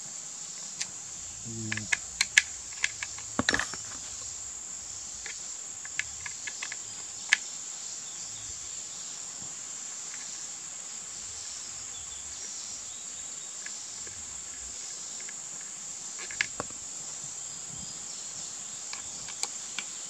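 Steady high-pitched calling of insects throughout, with scattered sharp metal clicks and taps from an Allen key and screws against the air rifle's underside as the stock screws are taken out, several together a couple of seconds in and a few more later.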